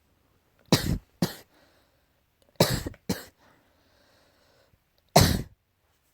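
Allergy coughing: two coughs, then two more, then a single cough near the end, with faint breaths between the bouts.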